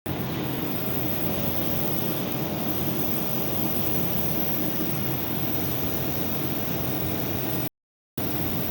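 Steady mechanical rumble and rushing noise, like a running machine. It cuts off suddenly near the end.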